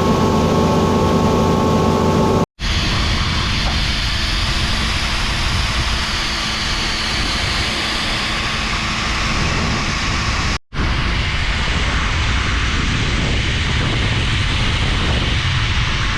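Large farm machinery running steadily, heard as three clips cut together. The first is a machine hum with a steady pitched drone. After a sudden cut about two seconds in comes a loud, even roar like a big fan, and it carries on through a second cut.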